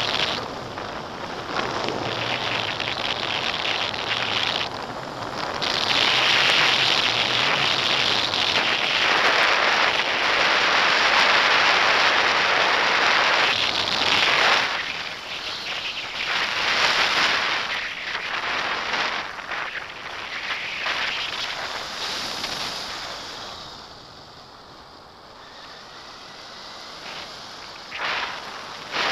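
Wind rushing and buffeting over a handheld action camera's microphone in paraglider flight. It swells to its loudest for several seconds before the middle, eases to a quieter stretch late on, then gusts up again at the very end.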